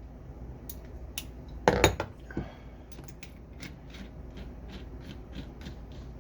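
Metal parts of a torque wrench being handled while it is taken apart: a few sharp knocks with a louder clatter about two seconds in, then a run of light, evenly spaced clicks, about three or four a second.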